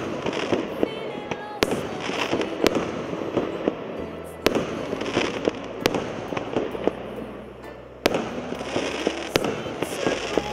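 Multi-shot fireworks cake ("С 043 Новогодний салют") firing: about seven sharp bangs one to two seconds apart, each aerial burst followed by the crackle of glittering stars.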